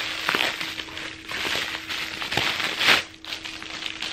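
Packaging crinkling and rustling as it is handled, with scattered sharp crackles, loudest about three seconds in.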